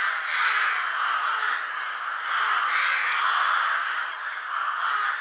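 A colony of crows cawing from their treetop nests, many birds calling over one another in a continuous, overlapping chorus.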